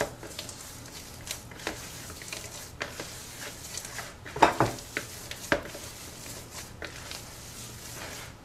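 Hands squishing and kneading masa dough with vegetable shortening in a plastic mixing bowl: soft, irregular squelches and rubs, with two louder ones about four and a half and five and a half seconds in.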